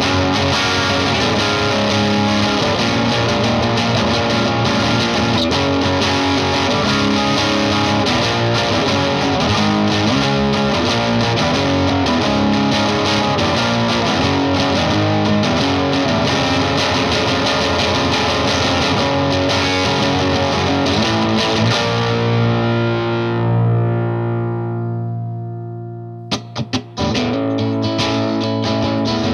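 Overdriven electric guitar, a Fender Stratocaster through an MXR Duke of Tone overdrive pedal in OD mode into a slightly driven Vox AC15 amp, playing chords and riffs. Near the end a chord is left to ring and fade, a few short stabs follow, and playing starts again with the pedal in its boost mode.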